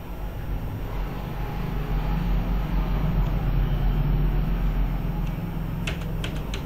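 A low, steady rumble that swells over a few seconds and then eases, followed near the end by a few sharp computer keyboard key clicks.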